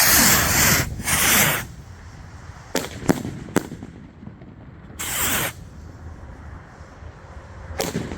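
Welcome to the Sky firework rockets launching from a rack in quick succession. Loud rushing hisses at the start, about a second in and about five seconds in, with sharp bangs from about three seconds in and another near the end.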